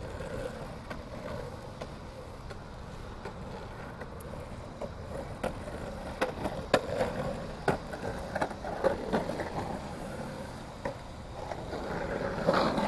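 Skateboards rolling on concrete, the wheels rumbling steadily, with a run of sharp clacks of boards hitting the ground from about five seconds in; the rolling grows louder near the end.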